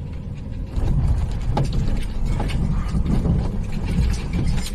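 Maxus V90-based motorhome jolting over a rough, broken road: a low rumble that gets louder about a second in, with many irregular knocks and rattles from the body and loose contents.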